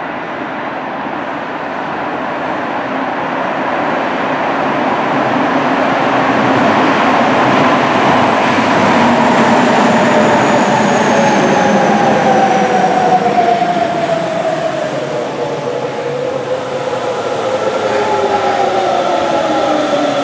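Rubber-tyred Sapporo Subway train running into a station, its tyre and running noise building up as it approaches. From about eight seconds in, the motor whine falls in pitch as the train slows along the platform.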